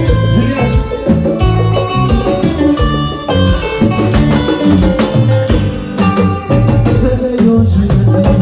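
Live Haitian konpa band playing loudly, with electric guitar over congas and a drum kit in a steady dance rhythm.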